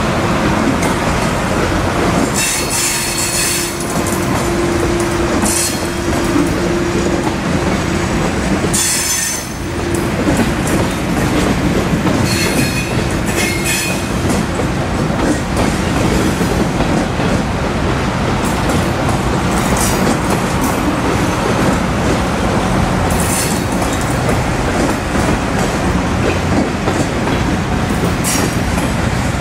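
Freight cars of a long train, boxcars and Tropicana juice cars, rolling steadily past with a continuous rumble and rattle of wheels on rail. Brief high-pitched wheel squeals come several times.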